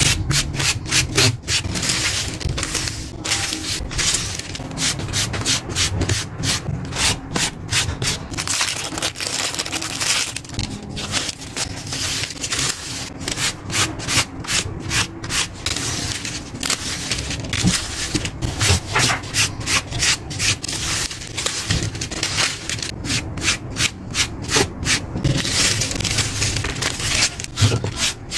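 Paper being rubbed and slid in quick repeated strokes, a fast scratchy swish several times a second, from the pull-out paper pieces of a handmade picture book being worked back and forth.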